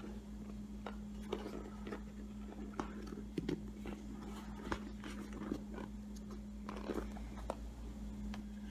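Faint scattered clicks, taps and scrapes of a cut-open football and a multitool being handled, over a steady low electrical hum.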